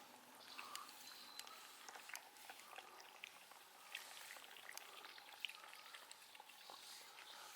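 A cat eating: faint, irregular little clicks and crackles of chewing.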